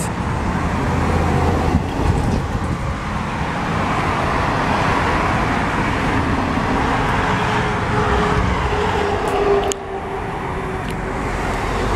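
Steady road traffic noise of cars driving past on a street.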